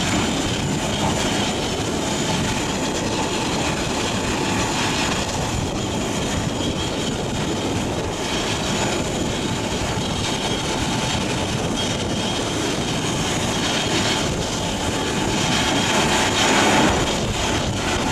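Morbark HT1684 Predator tracked slow-speed shredder running under load, its 500 hp engine droning steadily while the rotor grinds through waste wood fed in by an excavator grapple. Dense, even machine noise, swelling briefly near the end.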